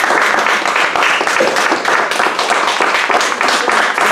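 Audience applauding: dense, continuous clapping of many hands.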